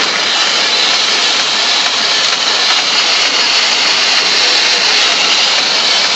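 Hard plastic toy wheels rolling over rough asphalt, a steady gritty rolling noise.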